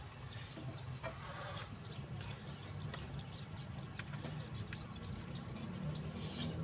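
Metal spoons clicking against plastic bowls and noodles being eaten, with a brief slurp near the end, over a steady low hum.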